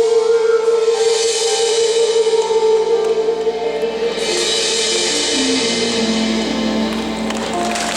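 Live concert music: a long held note over a sustained accompaniment, the piece drawing to its close near the end.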